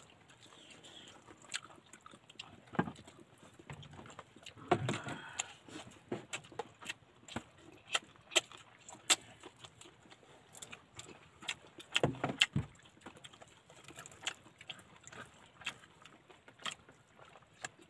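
A person eating by hand, close up: scattered sharp clicks and smacks of chewing, with two brief louder low sounds about five and twelve seconds in.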